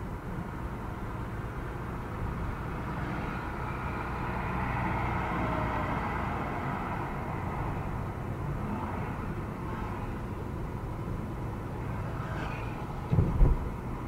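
Car engine and road noise heard from inside the moving car through a dash cam's built-in microphone: a steady low rumble that swells slightly midway. A single loud thump comes about a second before the end.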